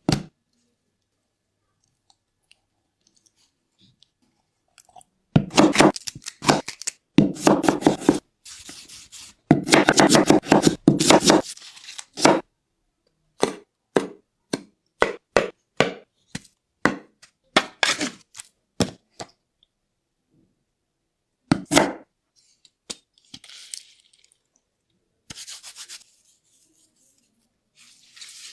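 Knife chopping on a cutting board: two runs of rapid strokes, then slower single strokes about twice a second.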